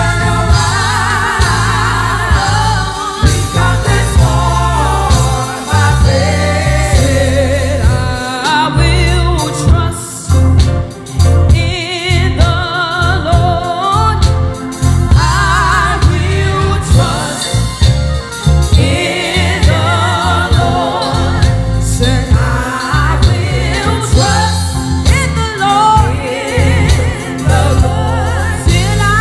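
Gospel praise team singing into microphones, a lead singer with backing vocalists, over instrumental accompaniment with a strong bass.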